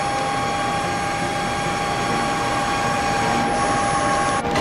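ACER EMC-2240A vertical machining center running, a steady whine over a constant rushing noise, which changes abruptly near the end.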